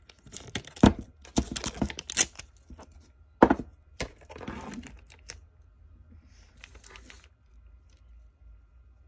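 Clear tape being pulled off a handheld tape dispenser and torn on its cutter: a run of crackles and clicks, a sharp snap about three and a half seconds in, then a short rustle as the tape is pressed onto paper.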